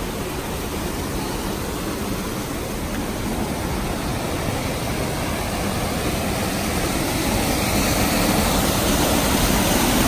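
Rushing white water of a mountain creek cascading over rocks: a steady roar of water noise that grows gradually louder over the last few seconds.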